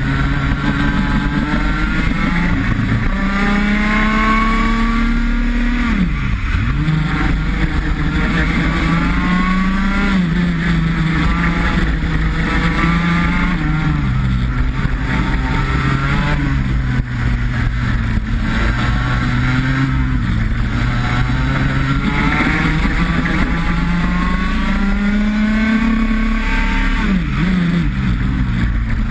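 IAME X30 125cc two-stroke kart engine heard onboard at racing speed, its pitch climbing steadily as the kart accelerates and dropping sharply when it slows for corners, with a deep drop about six seconds in and another near the end.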